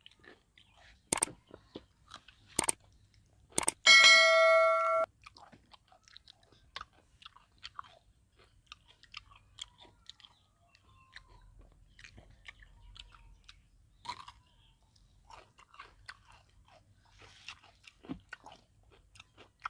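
Three sharp clicks, then about four seconds in a bright bell-like ding lasting about a second, the loudest sound: a subscribe-button sound effect. The rest is faint chewing and crunching of fried rat and raw vegetables.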